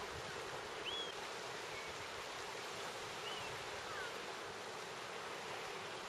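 Steady hiss of surf and wind, with a few faint, short gull calls over it.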